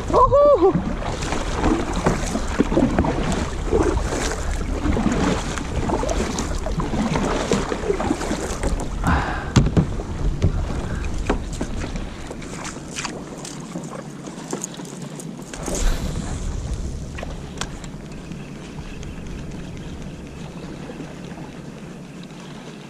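Water sloshing and splashing against a kayak, with wind buffeting the microphone. The wind rumble eases off about twelve seconds in.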